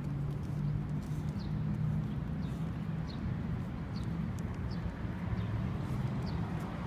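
A small bird chirping repeatedly in short, high, falling chirps over a low steady hum.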